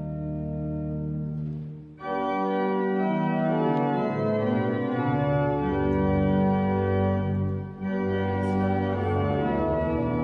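Church organ playing held chords, soft at first, then a fuller, louder chord after a short break about two seconds in.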